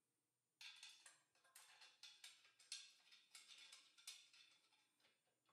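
Near silence, with a scatter of faint clicks and light metallic taps from bolts being fitted by hand through a metal bracket.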